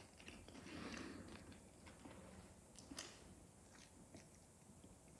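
Faint chewing of crisp cucumber, with a few soft clicks. The sharpest click comes about three seconds in. Otherwise near silence.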